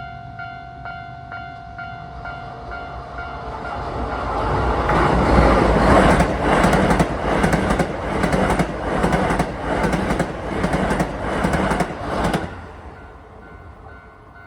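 Level-crossing warning bell ringing about twice a second, drowned out as a Keisei 3000-series electric train approaches and passes loudly with a steady run of wheel clacks over the rail joints. The train's noise cuts off suddenly as the last car clears, and the bell is heard faintly again.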